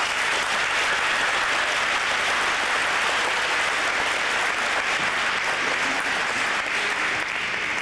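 Audience applauding: steady, dense clapping from a large group.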